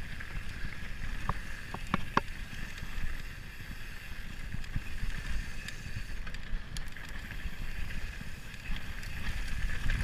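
Mountain bike riding fast down a rough dirt trail: wind buffeting the handlebar-mounted microphone over a steady rumble and rattle from the bike, with a few sharp clicks or knocks in the first couple of seconds.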